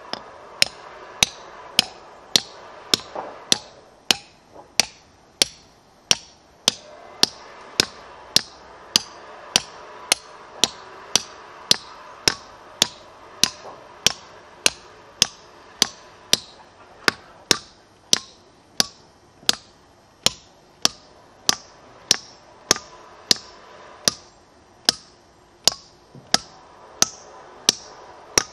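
A hammer striking steel plug-and-feather wedges (stone-splitting wedges) set in drilled holes in a stone block, in a steady run of sharp metallic clinks a little under two a second, each with a short ring. The wedges are tapped in turn along the row to build up pressure and split the stone.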